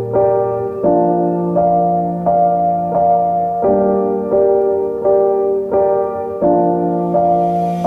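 Background music: piano or electric-piano chords struck in a steady rhythm, a new chord about every three-quarters of a second.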